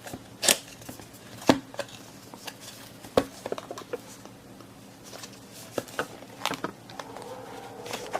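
A small product box being opened and handled by hand: a series of sharp taps and clicks with light rustling and scraping, the loudest clicks about half a second, a second and a half and three seconds in. A faint steady hum joins near the end.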